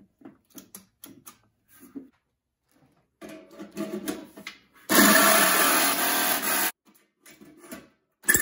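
Corded jigsaw run in one burst of about two seconds against the steel ammo can, stopping abruptly, then starting again at the very end. Before it, light clicks and knocks of the metal can and faceplate being handled.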